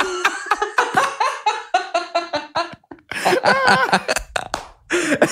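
Men laughing in quick repeated bursts, breaking off briefly about three seconds in and then laughing again.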